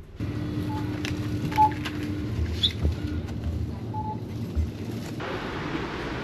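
City ambience: a steady rumble of traffic and hiss with a low hum, a few short high beeps, scattered clicks and a brief bird-like chirp. The hiss gets brighter about five seconds in.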